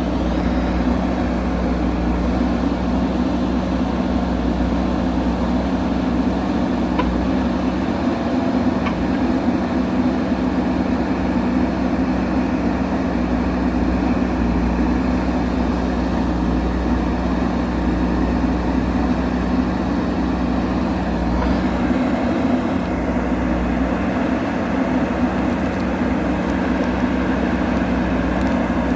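Diesel engine of a JCB backhoe loader running steadily at a constant speed, with a steady hum.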